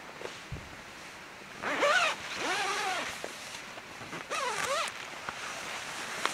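A tent zipper pulled twice: one long pull, then a shorter one about a second later.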